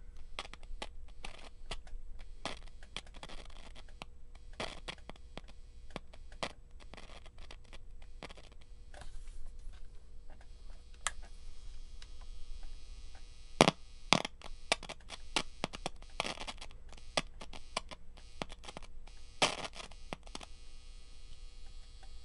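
Irregular crackling and popping over a steady hum from the EICO 147A tube signal tracer's speaker in its component noise test mode: the sound of a noisy component. A few pops stand out louder, one about two-thirds of the way in and another near the end.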